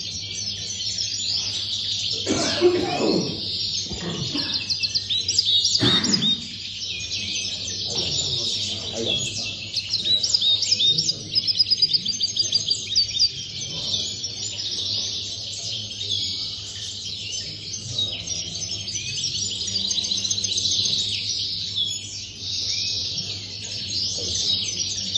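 Caged European goldfinches singing: a fast, continuous twittering of chirps and trills. A few brief low background sounds come about three and six seconds in.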